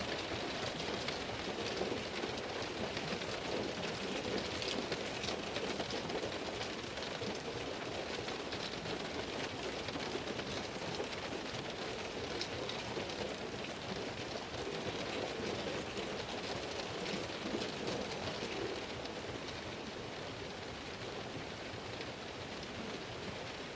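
Heavy rain falling on a car's window and bodywork: a steady, dense hiss made of many small drop impacts, easing a little near the end.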